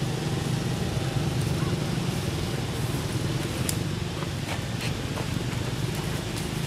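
A steady, low motor hum with a few faint clicks.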